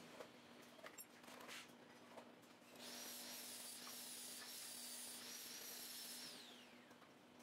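A small electric power tool motor runs with a steady high whine and hiss for about three and a half seconds, then winds down with a falling pitch. A few faint clicks come before it.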